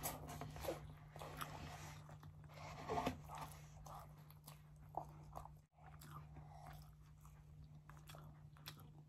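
Close-miked biting and chewing of a baked pepperoni puff roll: small crisp pastry crunches and mouth sounds, over a steady low hum. The sound drops out briefly a little over halfway.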